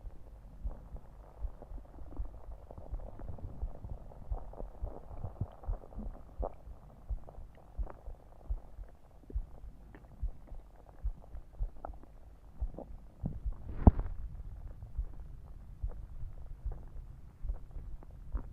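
Stomach growling and gurgling after drinking soda, with a person's heartbeat beating steadily underneath, a little more than once a second. A sharp pop about 14 s in is the loudest sound.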